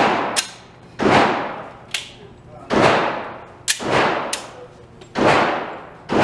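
A string of handgun shots at an indoor range, one about every one to two seconds, each ringing out with a long echo in the hall. Shorter, sharper cracks fall in between.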